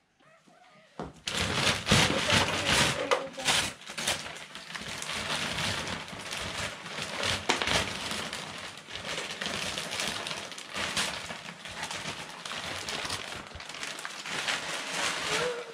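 Wrapping paper being torn and crumpled off a large present: a dense crackling rustle that starts about a second in and goes on almost to the end.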